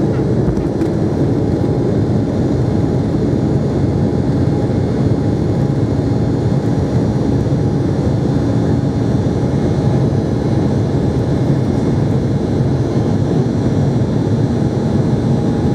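Embraer E190's twin GE CF34-10E turbofan engines at takeoff thrust, heard from a cabin seat over the wing: a steady, loud noise with a faint steady whine as the jet lifts off the runway and climbs.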